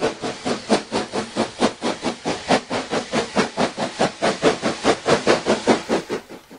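Steam locomotive exhaust chuffing in a quick, even rhythm of about four beats a second, fading out near the end.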